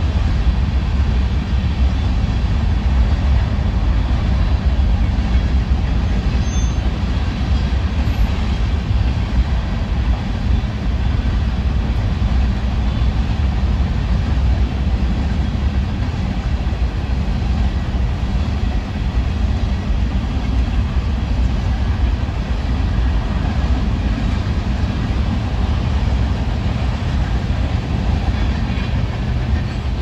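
Freight cars of a passing manifest train rolling over the rails: a loud, steady rumble of wheels on track.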